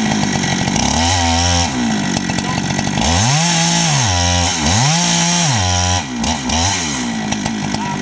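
Husqvarna 395XP 94 cc two-stroke chainsaw, fitted with a four-foot bar on an Alaskan chainsaw mill, running steadily as it rips a slab lengthwise through a log. The engine pitch sags and climbs back several times, about a second in, then twice between three and six seconds, and once more near seven seconds.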